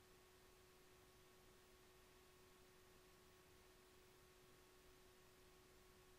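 Near silence: a faint steady hiss with a constant low hum-like tone, no thunder heard.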